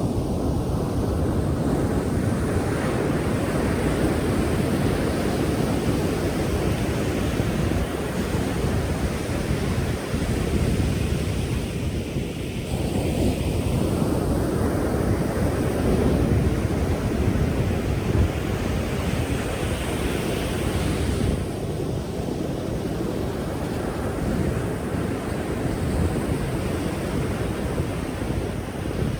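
Pacific Ocean surf: waves breaking and washing in as a continuous rushing noise, swelling twice, once just after the start and again about halfway through, each easing off after several seconds.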